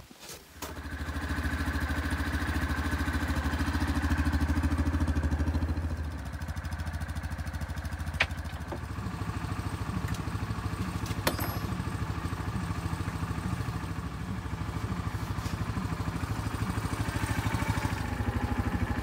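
A vehicle engine idling steadily, dropping slightly in level about six seconds in, with two sharp clicks a few seconds apart in the middle.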